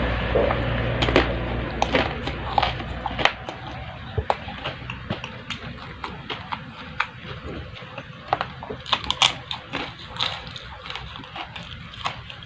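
A person chewing and eating close to the microphone, with many short wet smacks and mouth clicks at an irregular pace. A low rumble fades out over the first three seconds.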